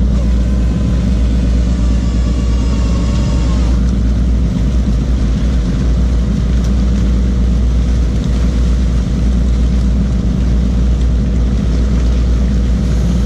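A fishing boat's engine running steadily as a loud, low drone, with a hiss of water and machinery over it. A faint high whine sounds for the first few seconds and then fades.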